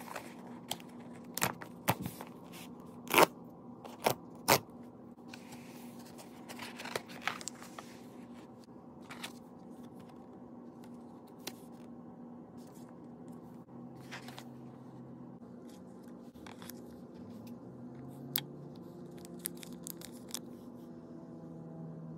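A cardboard mailer being opened and unpacked: a run of sharp snaps and taps in the first few seconds, the loudest about three seconds in, then paper and cardboard rustling and scattered light clicks as the contents are handled. A steady low hum lies underneath.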